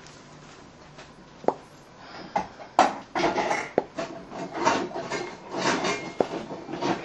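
Kitchen work on a wooden surface: a few separate sharp knocks, then from about three seconds in a busy run of scraping, rubbing and knocking.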